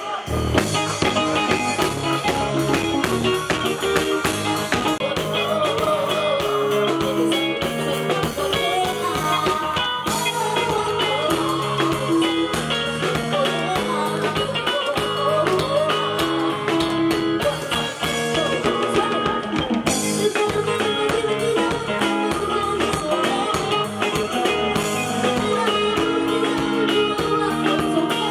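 Band music with guitar and drum kit, with singing, playing without a break.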